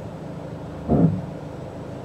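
Steady low road and engine noise inside a moving car's cabin, with one short vocal murmur from a man about a second in.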